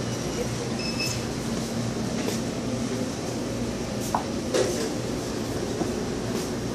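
Steady low hum and rumble of a store's indoor ambience, the kind of drone given off by ventilation and cooler units, with a couple of short knocks about four and a half seconds in.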